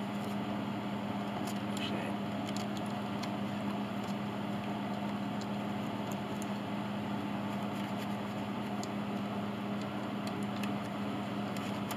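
Steady low machine hum with a few faint clicks from hands working thin glue into a loose soundboard joint with a brush and a plastic strip.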